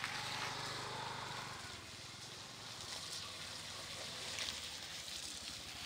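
Bajaj auto-rickshaw's small single-cylinder engine running with an even, fast putter as it drives slowly past close by.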